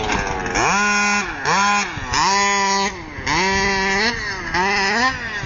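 Small two-stroke engine of a radio-controlled Baja buggy revving in short bursts, about one a second. Each burst climbs quickly to a steady high pitch and falls back.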